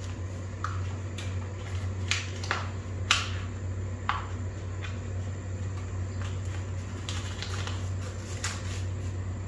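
A few light clicks and taps from hands working small parts, as an adhesive pad is fitted to plastic trim, over a steady low hum.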